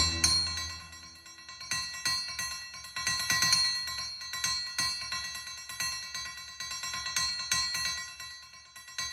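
Cinematic sound effect of high, ringing bell-like jingling and tinkling, struck again and again at an uneven pace. A low drone fades out in the first second or so.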